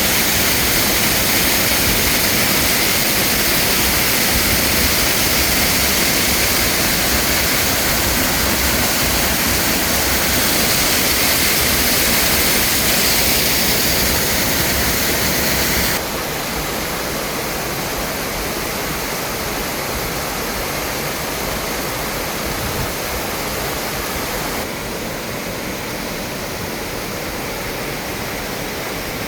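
Steady rushing water, an even wash of noise. It drops abruptly to a softer level about halfway through and steps down once more near the end.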